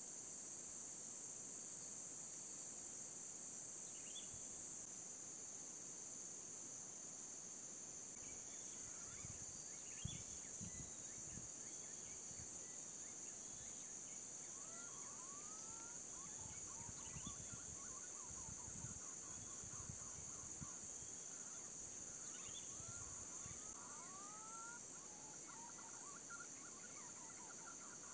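A steady high insect drone, likely cicadas or crickets. From about halfway through come repeated faint, rising whistled notes in the style of green-pigeon calls.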